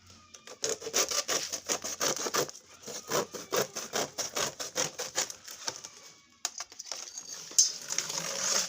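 Hand saw cutting wood in quick, regular strokes, pausing briefly about six seconds in before a last stretch of sawing.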